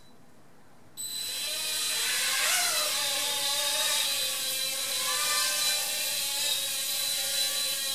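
Blade Nano QX micro quadcopter's four small motors and propellers whining in flight. It starts abruptly about a second in, with the pitch wavering up and down as the throttle changes.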